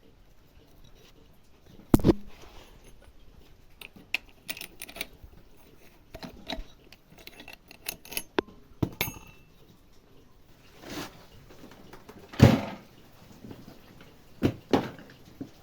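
Tools and small metal parts being handled, clinking and knocking irregularly, with louder knocks about two seconds in and again later on.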